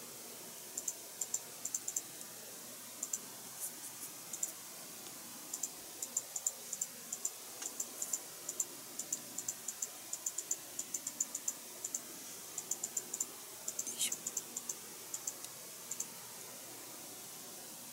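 Light, irregular clicking and ticking as small plastic model parts are worked by hand with a fine tool, with clicks coming in quick clusters and one sharper click about fourteen seconds in.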